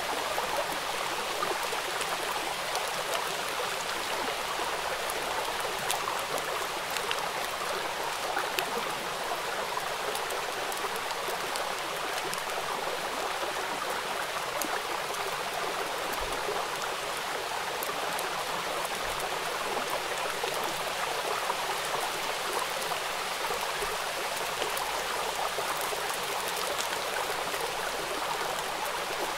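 Steady rain falling on standing water: a dense, even hiss of drops with many small, sharp splash ticks scattered through it.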